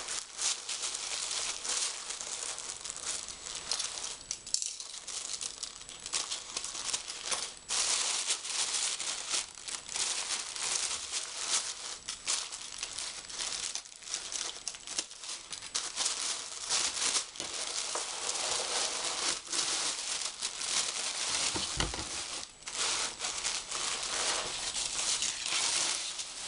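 Thin black wrapping being unfolded and crumpled by hand: continuous crinkling and rustling, full of small sharp crackles.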